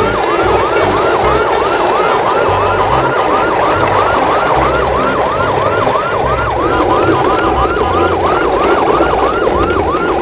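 Electronic emergency-vehicle siren in a fast yelp, wailing up and down about three times a second without a break, over a dense steady hum.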